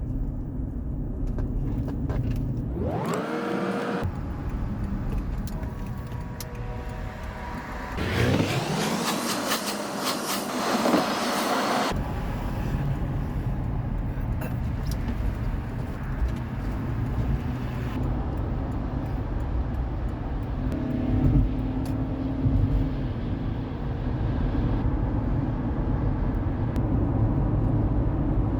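Car driving on the road: steady engine and tire noise, with the engine rising in pitch as it accelerates about three seconds in and again about eight seconds in. The sound changes abruptly several times along the way.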